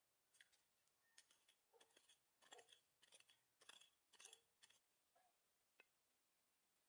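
Faint scratching and scraping of dry, loose soil being dug away by hand: a quick series of short, rough strokes for about four seconds, then a single small click near the end.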